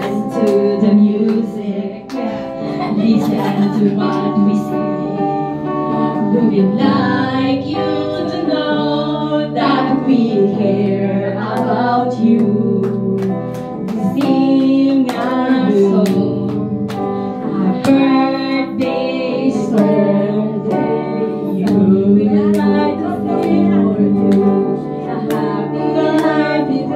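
Two women singing a song into microphones, with acoustic guitar accompaniment.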